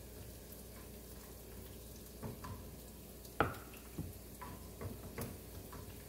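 Onions frying with a faint sizzle in a non-stick pan, with a few clicks and knocks of a slotted spatula against the pan; the loudest knock comes about three and a half seconds in.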